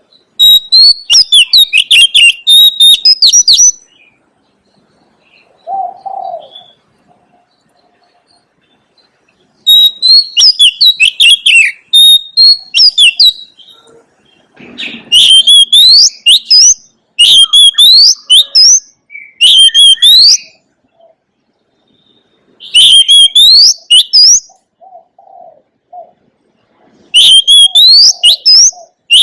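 Oriental magpie-robin singing loudly in repeated phrases of rapid, sweeping whistled notes, each phrase lasting one to four seconds with short pauses between.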